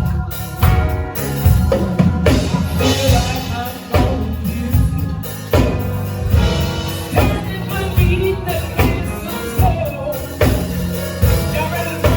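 A song with a solo singer over drums and bass, with a steady beat.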